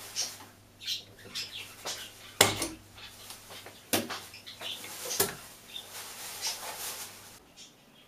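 A screwdriver prying a cover plate out of a wall recess: short scraping and scratching, with three sharp knocks of the plate and tool against the wall, the loudest about two and a half seconds in.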